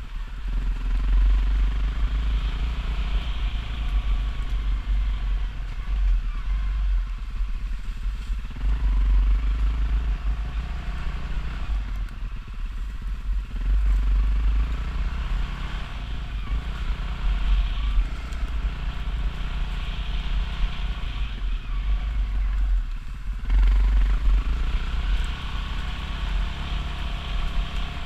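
Dirt bike engine running under changing throttle, easing off and picking up again several times, with heavy wind rumble on the bike-mounted microphone.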